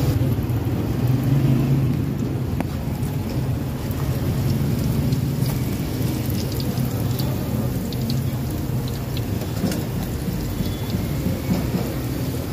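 Lumpiang toge (bean-sprout spring rolls) deep-frying in a wok of hot oil, sizzling steadily with scattered small pops over a steady low rumble.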